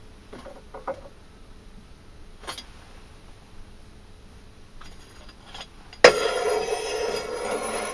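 A few light metal clinks of handling, then about six seconds in a gas blowtorch lights with a sharp pop and burns with a steady loud hiss, resonating in the forge.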